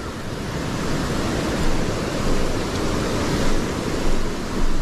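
Small waterfall's water rushing steadily, an even roar of falling water.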